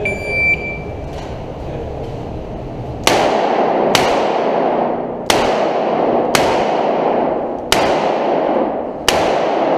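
A shot timer beeps once, then a revolver fires six shots, the first about three seconds in and the last near the end, about a second apart. Each shot rings on in the reverberant concrete range bay.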